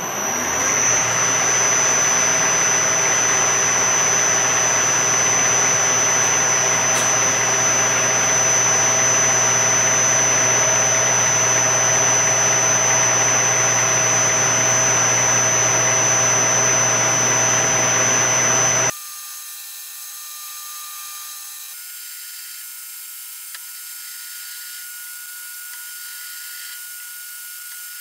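Metal lathe spinning up and running steadily while a small twist drill in the tailstock chuck is fed into the end of a metal bar, a first smaller drill before the hole is opened up, with a high steady whine over the machine noise. About two-thirds of the way through the sound drops abruptly to a much quieter, thin high-pitched hiss.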